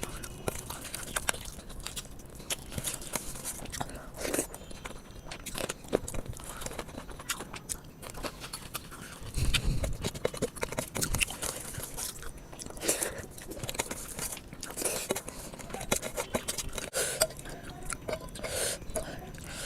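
A person chewing and biting a mouthful of rice and chicken curry close to the microphone: irregular short mouth clicks and smacks.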